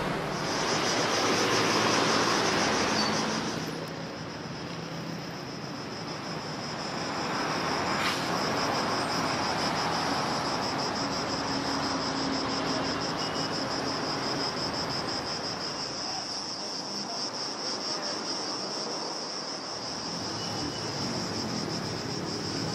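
Insects chirring in a steady, high-pitched drone with a fast pulse, over a wash of city traffic noise that drops away after the first few seconds.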